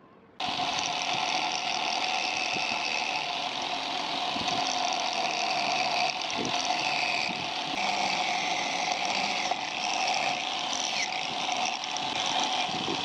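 Electric angle grinder fitted with a crimped wire cup brush, running steadily at full speed. It cuts in abruptly about half a second in.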